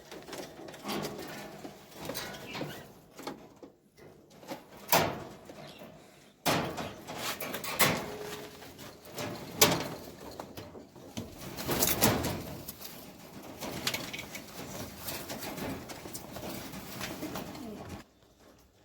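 Pigeons cooing in a room, mixed with sharp clicks and knocks; the sound cuts off abruptly near the end.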